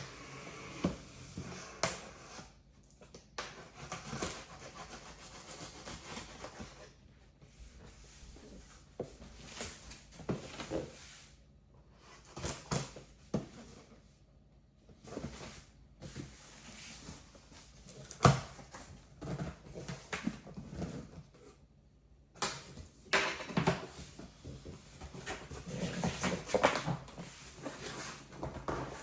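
Unpacking sounds from a boxed DJ mixer: cardboard and packing material rustling and scraping, with scattered knocks and taps as parts are handled.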